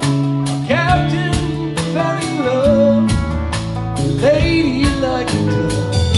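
Live band playing: electric guitars, bass, drums and keyboard in a steady country-rock groove, with a man's voice singing a phrase about a second in and another about four seconds in.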